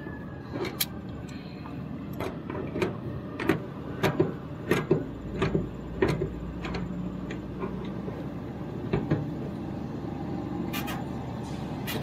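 Irregular sharp metal clicks and taps as pliers grip and turn a brass flare nut onto a mini-split service valve, snugging the flare connection by hand before torquing, over a steady low hum.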